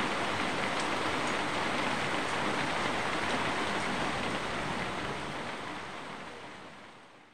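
Steady rain falling, an even hiss with a few faint drip ticks, fading out over the last few seconds.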